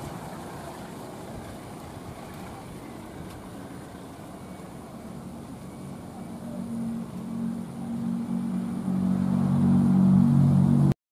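A rumble fades away at the start. Then a diesel locomotive's engine hum, a steady low drone, grows louder over the last few seconds as it draws near, and the sound cuts off suddenly.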